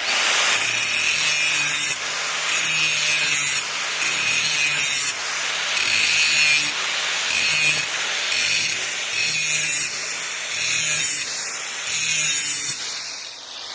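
Power grinder sharpening a steel lawnmower blade in repeated passes, roughly one a second, the grinding rising and falling over a steady low motor hum.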